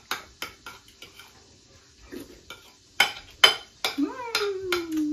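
Forks and spoons clinking and scraping on dinner plates, a run of quick sharp clicks. About four seconds in, a baby lets out one long vocal sound that slides down in pitch.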